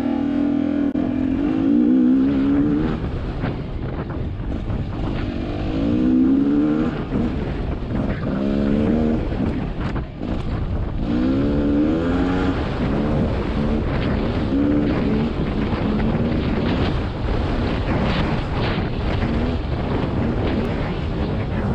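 GasGas two-stroke dirt bike engine under way, its pitch climbing as the throttle is opened and falling back, over and over.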